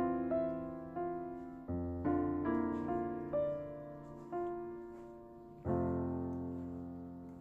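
Slow background piano music: single melody notes that each fade out, with low chords coming in about two seconds in and again near the end.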